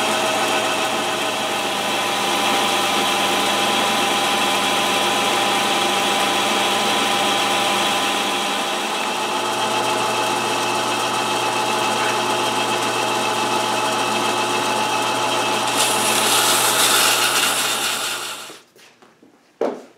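Metal lathe running steadily with its chuck spinning a pulley, a steady mechanical hum with a whine of several fixed tones. Near the end a louder hiss joins for a couple of seconds, then the whole sound cuts off suddenly, followed by a single knock.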